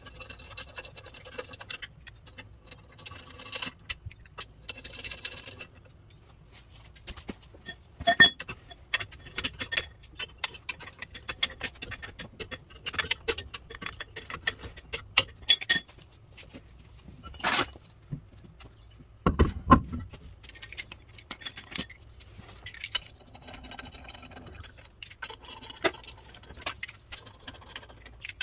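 Lug nuts being run down by hand with a socket and extension onto wheel-spacer and wheel studs: scattered metallic clicks and clinks of socket, nuts and studs, with a few louder knocks along the way.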